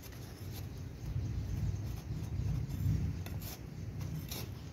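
Metal hand tool scraping and digging in potting soil in a pot while a rooted cutting is worked in, with a few light clicks. The sound is low and rough, louder in the middle.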